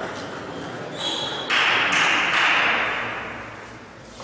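Table tennis ball clicking on the table and bats, four hits about half a second apart, over a burst of noise that starts suddenly about a second and a half in and fades away over the next two seconds.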